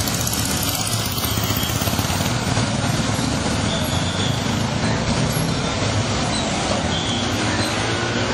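Engines of a column of motorcycles and a Maruti Gypsy jeep moving slowly past, a steady mix of engine and road noise.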